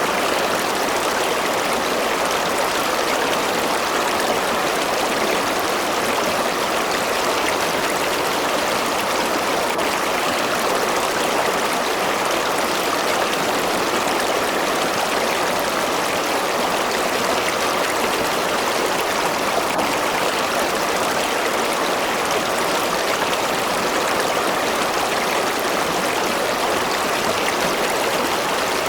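River water flowing steadily over rocks, an even, continuous rush and babble.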